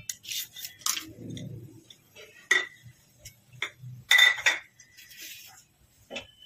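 A ceramic bowl knocking and clinking against the rim of an aluminium pot as whole spices (cloves and bay leaves) are tipped into the oil, a series of sharp clinks, the loudest two about 2.5 and 4 seconds in ringing briefly.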